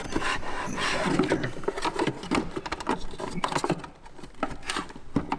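Hands and tools working at an aircraft battery box while a battery is fitted: a quick, irregular run of small clicks, knocks and scrapes of metal and plastic parts, with rustling between them.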